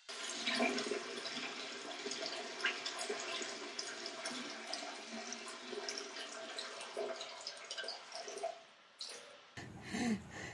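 Tap water running into a washbasin: a steady rush with scattered splashes and drips. It stops about nine seconds in.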